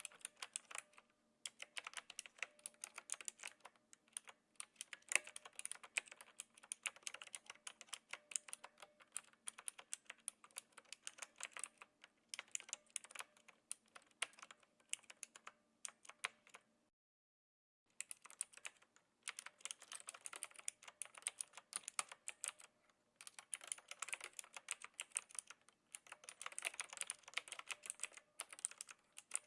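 Knewkey Rymek typewriter-style mechanical keyboard with clicky blue switches being typed on in a quick, continuous run of key clicks. The typing cuts out completely for about a second about halfway through, then resumes.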